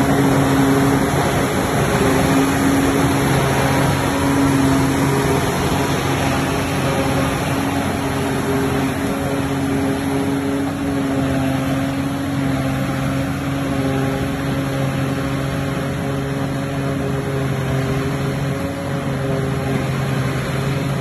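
Self-propelled wheel-type silage harvester's diesel engine running steadily under working load, a constant hum over broad mechanical noise that eases slightly in loudness.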